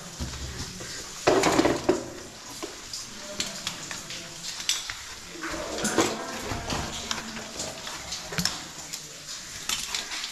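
Metal rappelling hardware clinking and rattling during a descent on rope: a run of sharp irregular clicks and clanks, with a louder rattle just over a second in.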